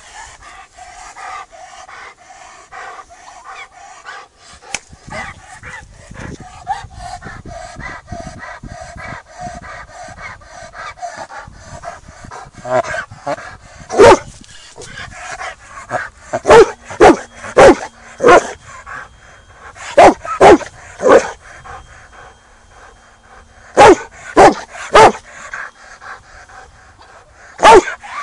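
A dog barking loudly in short bursts, mostly two to four quick barks at a time, repeating over the second half. Before the barking starts there is a steady pitched drone.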